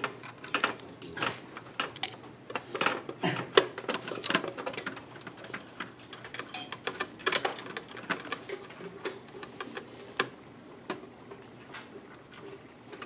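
Irregular small clicks and ticks of a screwdriver and loose screws as motherboard mounting screws are worked out inside a metal computer case, busiest in the first few seconds and sparser later.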